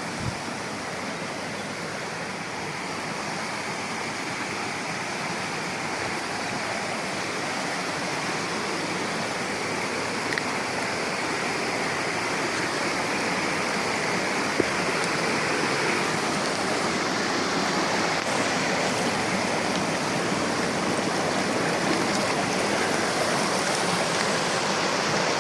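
River water rushing steadily, growing gradually louder over the first half or so, with a few faint ticks.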